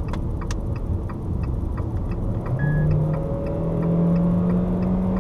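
Fiat Toro 1.8 Flex's four-cylinder engine and road noise heard from inside the cab at highway speed, with a light regular ticking. About halfway through the engine note rises and grows louder as the pickup accelerates.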